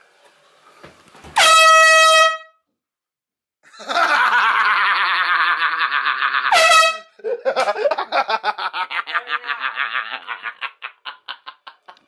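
Handheld canned air horn blasted twice in a small bathroom: a short blast about a second in, then a longer one from about four seconds in. Laughter follows in quick pulses.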